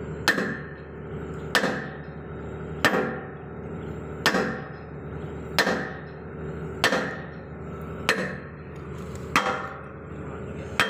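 Hammer blows on steel, about one every 1.3 seconds, each ringing briefly, as the 80 mm pin and bushing are driven into an excavator's pin joint. A steady machine hum runs underneath.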